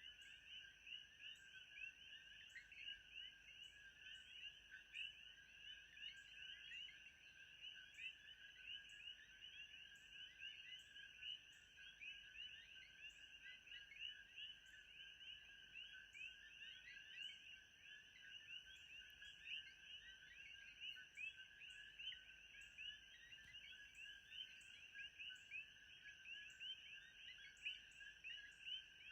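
Faint, continuous animal chorus: many short chirping calls overlapping without pause, over a steady high whine with faint regular ticks.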